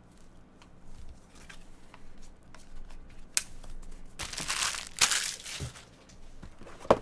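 Trading-card packaging being handled: a few light clicks, then plastic wrapping crinkling and tearing from about four seconds in, with a couple of sharp snaps.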